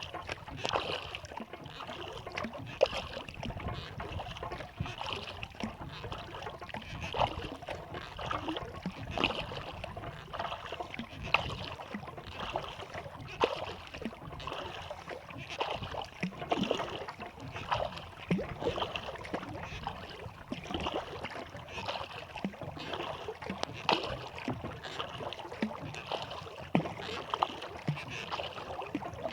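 Kayak paddle strokes: the blades dipping into and pulling through lake water, with splashing and dripping in a steady rhythm of roughly one stroke every two seconds.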